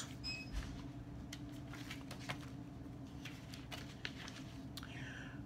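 Faint rustles and light clicks of a paperback picture book being handled, over a steady low hum.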